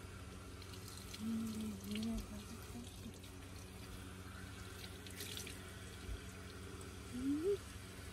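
Kitchen-sink faucet running onto a wet puppy's coat as hands rub it, a steady low splash of water. Brief voice-like sounds come through about a second in and again near the end.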